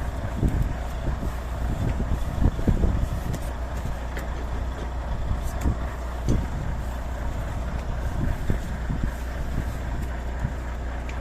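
Volvo truck's diesel engine idling with a steady low hum, overlaid by scattered low knocks and clunks.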